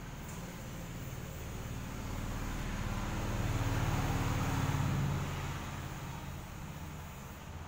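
A motor vehicle passing by: a low engine hum swells to its loudest about four to five seconds in, then fades away.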